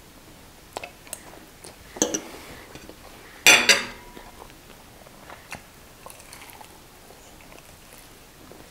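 Eating at the table: a fork clinking and scraping on a ceramic plate while fried chicken is picked up, with scattered short clicks and a louder brief sound about three and a half seconds in, then quieter small ticks as a drumstick is bitten.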